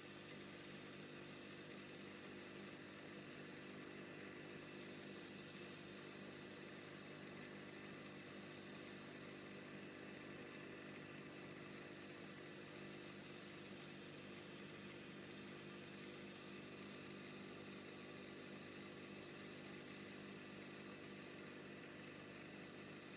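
Faint steady hum and hiss of running aquarium equipment, with several constant tones and no change throughout.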